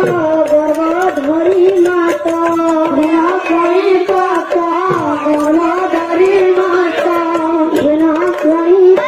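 Devotional kirtan singing: a boy's voice singing into a microphone over a barrel-shaped hand drum (khol/mridanga). Now and then a deep drum stroke sinks in pitch.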